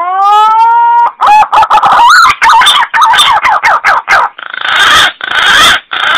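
Green pigeon (punai) calling: a long rising whistle, then a quick run of wavering, warbling notes, and three harsh, hoarse croaking notes near the end. It is a call used to lure green pigeons in for hunting.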